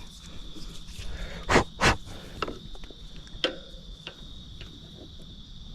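Handling noises: two louder knocks in quick succession about a second and a half in, then a few lighter clicks. Under them runs a steady high-pitched chirring of insects. The heat pump itself is not running.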